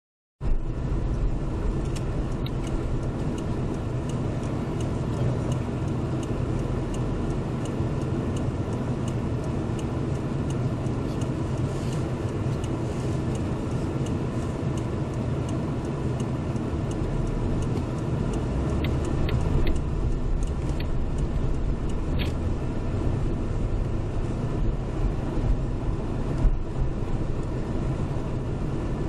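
Car driving on a wet road in the rain, heard through a windshield-mounted dash cam inside the cabin: steady tyre and road noise over a low engine rumble, with a few scattered sharp ticks.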